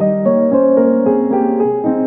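Background piano music: a gentle melody of single notes and chords changing several times a second.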